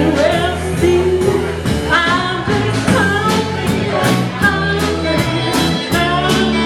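Live rock band playing a song: a singer over electric guitar, bass and drums, with cymbal hits about twice a second.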